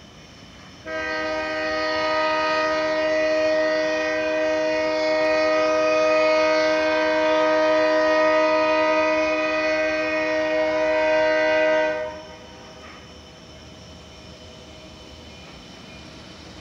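Diesel freight locomotive's air horn, a Carolina Piedmont GP38, sounding one long steady blast of several notes at once. It starts about a second in, holds for about eleven seconds and cuts off sharply, leaving a faint low rumble.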